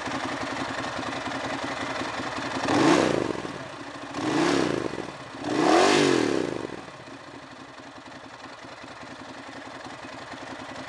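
Ducati Monster 1100 S air-cooled V-twin idling, then revved three times in quick succession, each rev rising and falling, the third the longest. It drops back to a quieter idle.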